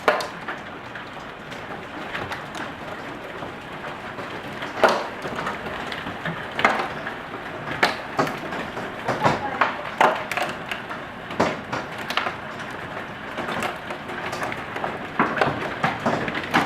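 Hailstorm: a steady hiss of falling hail with irregular sharp knocks as larger hailstones strike hard surfaces.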